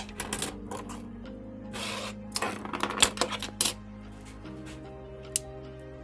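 Small hard toy parts clicking and clattering as they are handled and fitted together: a quick run of sharp clicks in the first three and a half seconds, then one more click near the end, over steady background music.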